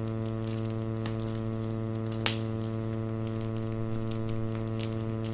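Steady electrical mains hum on the recording. Over it come faint clicks and rustles of plastic being handled, and one sharp click about two seconds in as a colostomy pouch is snapped onto its wafer.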